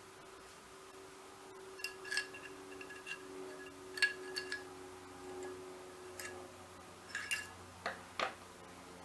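Small steel parts of a Ramset RS22 .22 caliber powder-actuated tool clicking and clinking against each other as the tool is taken apart, about ten sharp metallic ticks, several with a brief metallic ring.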